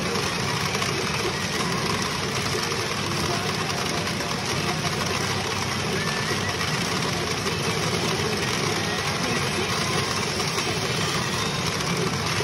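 Steady, dense din of a pachinko parlor, an even wall of mechanical noise with no distinct events.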